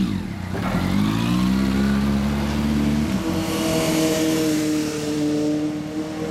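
1999 Kawasaki ZRX400 II's inline-four, breathing through a BEET aftermarket exhaust, pulling away and accelerating with the revs climbing. The revs drop sharply about three seconds in at an upshift, then climb again as the bike rides off.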